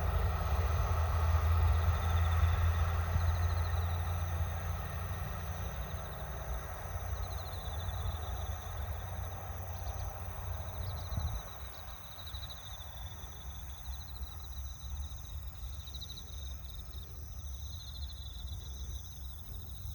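A two-car KiHa 75 diesel railcar train rumbling and fading as it draws away. Insects chirp in pulsing trills throughout.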